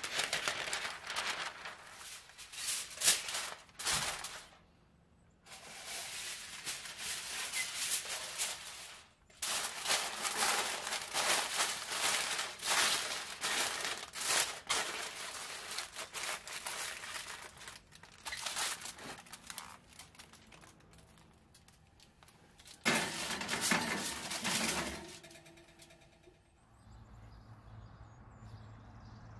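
Aluminium foil and parchment paper crinkling and crackling as they are pressed and crimped over a baking dish, in long bursts with short pauses. It quietens near the end as the covered dish goes into the oven.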